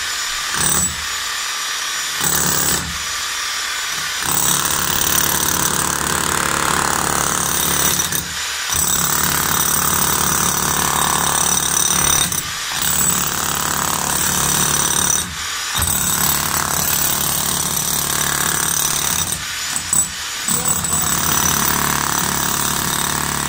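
Corded electric demolition hammer with a pointed chisel hammering into a concrete floor and breaking it up. It runs in long stretches with short stops every few seconds.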